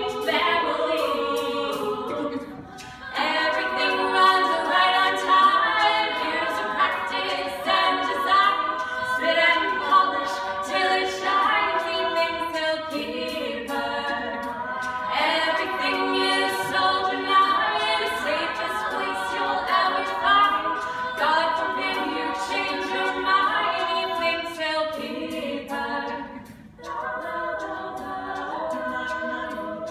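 A cappella group singing in close harmony, with a steady percussive tick keeping the beat; the singing dips briefly about two seconds in and again near the end.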